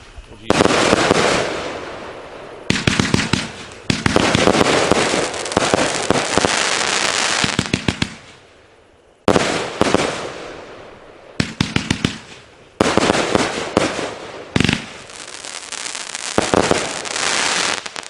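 500-gram aerial repeater firework cake firing in volleys: sharp bangs of shells launching and bursting, each followed by a crackling hiss that fades. There is a short lull about eight seconds in before the volleys resume.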